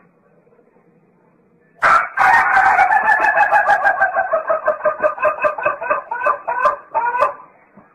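A loud animal call that starts about two seconds in and lasts about five seconds: a fast run of repeated pulses on a slightly falling pitch.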